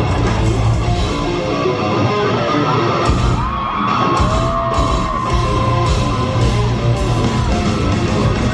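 Live metal band playing loud in a large hall: guitars and drums with long held sung notes that glide up and down, and some yelling.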